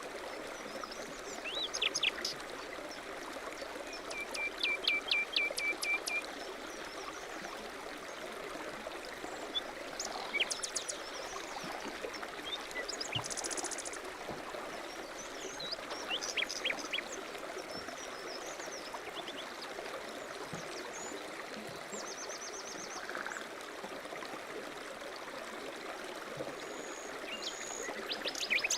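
A stream running steadily, with several songbirds chirping and calling over it. One bird gives a quick trill of about eight repeated notes about four seconds in.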